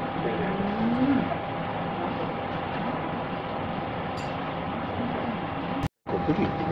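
Steady dining-room background noise: an even hiss with a thin constant hum beneath it and a faint murmur of a voice about a second in. The sound cuts out completely for a moment near the end.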